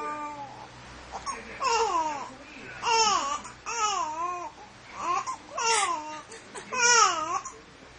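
Baby babbling: a string of about seven short, high-pitched vocal sounds whose pitch slides up and down, with short pauses between them.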